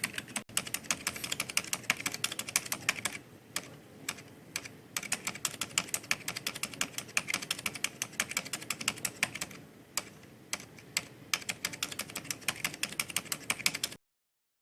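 Rapid typing on a mechanical keyboard with i-Rocks red-type switches: a dense run of key clicks with brief pauses, cutting off suddenly near the end.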